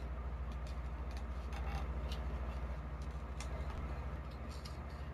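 Scattered light clicks and knocks of an airsoft rifle being handled, over a steady low hum.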